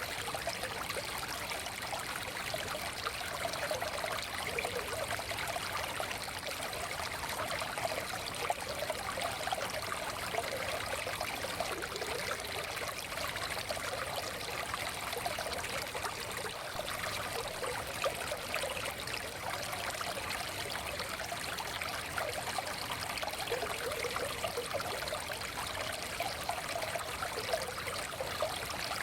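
Small forest stream flowing steadily, water trickling and babbling over stones with a constant rushing sound.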